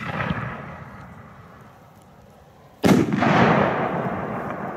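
Aerial firework shell going off: a sharp, loud bang about three seconds in, with a long echoing rumble that trails away. At the start, the echo of an earlier bang is still fading.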